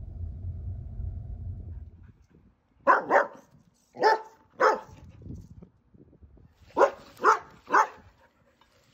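Dog barking in short sharp barks: a quick double bark, two single barks, then three in a row. A low steady hum runs underneath for the first couple of seconds.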